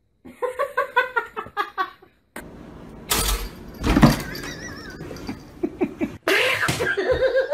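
People laughing in quick repeated bursts, with a loud jumble of knocks and handling noise in between.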